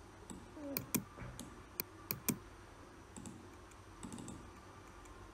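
Computer mouse clicking: about half a dozen sharp single clicks at irregular gaps, most of them in the first two and a half seconds.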